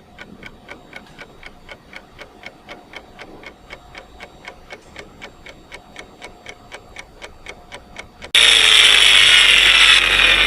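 Steady, even ticking, about four ticks a second. About eight seconds in, a much louder harsh noise with falling pitches cuts in abruptly.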